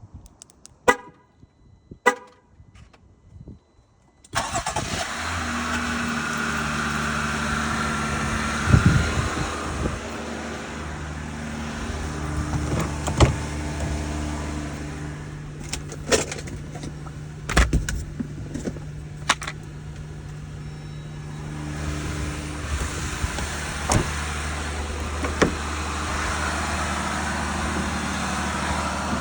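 A couple of clicks, then a car engine starts about four seconds in and runs at idle. The idle is marked by sharp ticks, which the owner asks about as either injector chatter or lifter tick.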